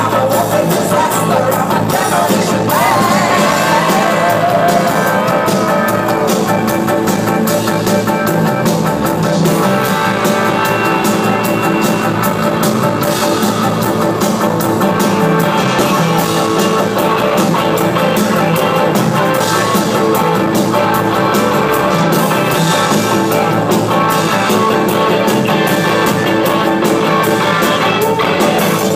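Live rock band playing loud amplified music with a steady driving beat, with a woman's singing voice over it a few seconds in.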